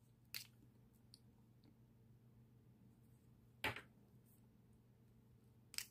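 Near silence with a faint steady room hum, broken by three brief faint clicks.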